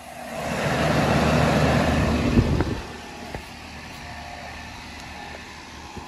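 Outdoor air-conditioner condenser unit running: a steady low hum with fan noise. It drops to a quieter, steadier hum about three seconds in.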